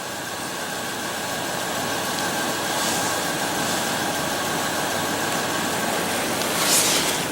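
A truck engine running, heard from inside the cab, under a steady rushing hiss.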